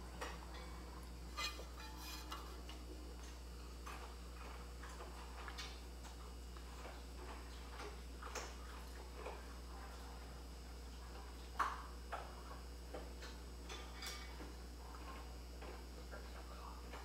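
Faint, irregular little clicks and smacks of a mouth eating from a plate held up to the lips, one sharper click about two-thirds of the way through, over a steady low hum.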